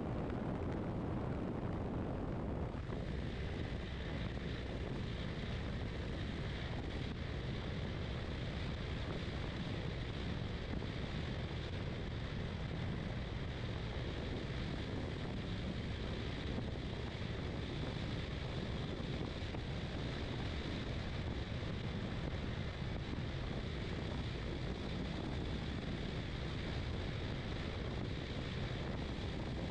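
Steady wind rush over a motorcycle-mounted camera at highway speed, mixed with the bike's engine and tyre noise.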